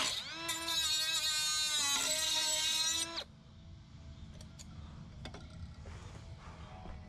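Milwaukee M12 Fuel 3-inch brushless cut-off tool running its metal cut-off wheel against the end of a Mazda valve cover. It gives a loud, high whine for about three seconds, dipping slightly in pitch as it bites, then stops. A few light clicks of handling follow.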